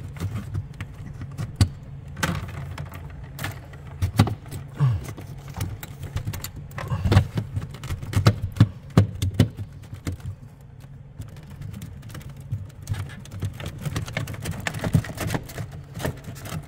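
Scattered clicks, knocks and light rattles from handling a small access panel inside a ceiling cassette air conditioner as it is worked loose, busiest in the middle, over a steady low hum.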